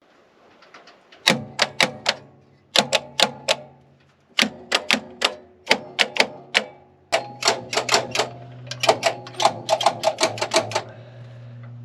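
Groups of sharp clicking strikes with a ringing tone under them, speeding up into a fast run of clicks in the second half.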